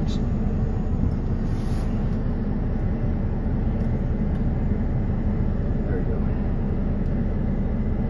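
Semi truck's diesel engine idling steadily, heard from inside the cab, with the cab ventilation fans blowing.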